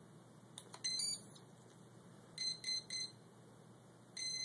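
Quadcopter brushless motors sounding the start-up beeps of their 18 A electronic speed controllers as battery power is connected. A couple of clicks come first, then a short run of rising tones, three quick high beeps, and one longer beep near the end. This is the ESCs' normal power-on signal.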